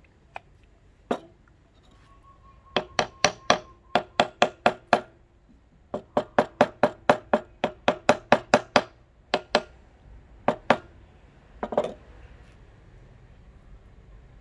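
Small hammer striking the top of a rosewood hatchet handle to drive the hatchet head down onto it. Two runs of quick blows, about four a second, with a faint metallic ring under them, then a few scattered taps.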